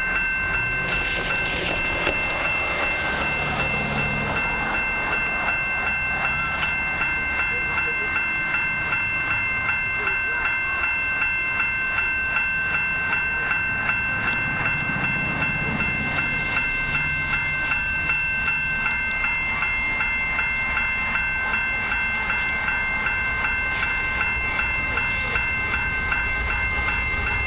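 Railway level-crossing warning bell ringing in rapid, even strokes, with a low rumble beneath it.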